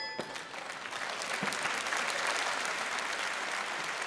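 Large arena crowd applauding, a dense even clatter of clapping that builds over the first second and then holds steady, just after the bell ending a boxing round.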